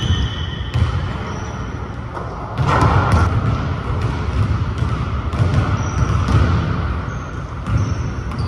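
Basketball dribbled on a hardwood gym floor, repeated bounces ringing in a large hall, with a few short high sneaker squeaks. A louder noisy rush comes about three seconds in.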